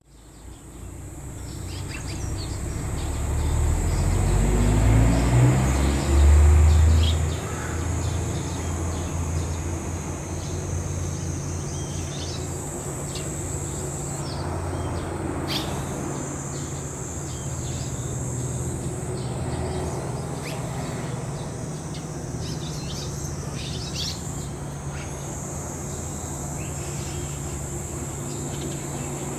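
Short scattered chirps of red-rumped swallows at their mud nest over a steady high insect drone. In the first several seconds a low mechanical rumble swells, rising in pitch, as the loudest sound, then settles to a faint steady low hum.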